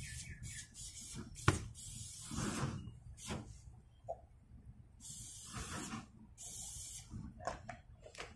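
Cooking oil going onto a hot stone grill: several short hisses of about a second each, starting and stopping abruptly, with a couple of sharp knocks and a low rumble underneath.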